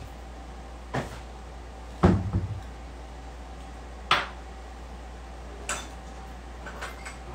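A kitchen cabinet door is worked, with a heavier thump and brief rattle about two seconds in. Sharp knocks of glassware set down on the countertop come about one, four and six seconds in, over a steady low hum.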